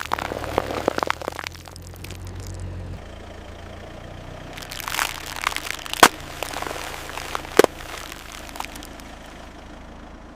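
Objects crunching and cracking under a car's tyre over the car's low steady engine hum. A burst of crackling comes at the start, then a few single sharp cracks, the loudest about six seconds in.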